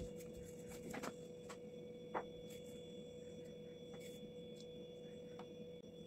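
Faint light clicks and taps as crushed peanuts are scattered over a plate of pasta, with one sharper clink about two seconds in, over a steady faint hum.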